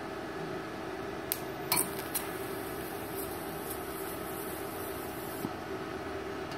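TIG welding arc on stainless steel, run from an MMA stick inverter: it strikes with a couple of clicks a little under two seconds in, then gives a steady high hiss for about four seconds before cutting off, as a tack weld. A steady machine hum runs underneath.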